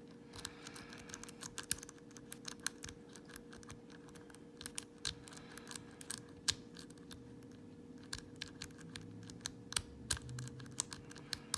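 Sparrows worm rake scraping and clicking over the pin tumblers of an old Corbin padlock as it is raked in and out: quick, irregular metallic clicks. The lock does not open.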